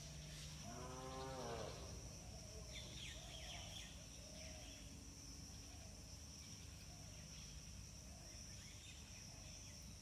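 Faint rural outdoor ambience: a steady high-pitched insect drone, a single short lowing animal call about a second in, and a few scattered bird chirps.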